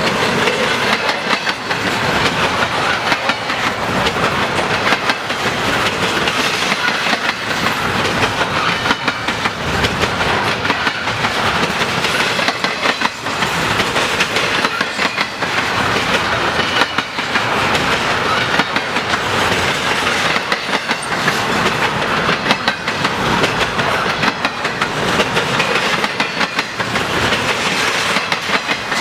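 Freight cars of a long intermodal train rolling past: a steady rumble of steel wheels on rail, broken by frequent quick clacks and knocks as the wheels cross rail joints.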